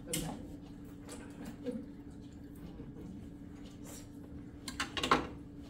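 Cookware handled on an electric stovetop: a click at the start and a short cluster of knocks about five seconds in, over a steady low hum.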